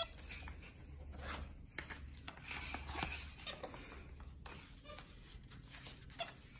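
Pens scratching on notebook paper in quick, irregular scribbling strokes as a capuchin monkey scrawls lines across the page, over a low steady hum.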